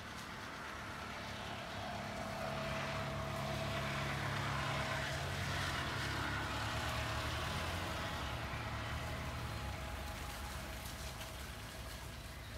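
An SUV's engine running as it drives slowly across rough grass past the listener. It grows louder as the vehicle approaches, is loudest about halfway through, then fades as it moves away.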